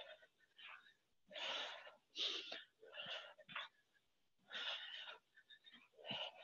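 A woman breathing hard through the mouth from exertion, in quick, noisy breaths about once a second, some drawn out longer than others.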